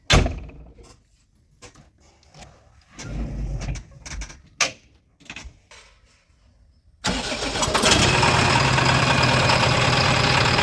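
A sharp knock, then scattered clicks and thumps of a machine being handled. About seven seconds in, a diesel engine starts suddenly and keeps running steadily and loudly.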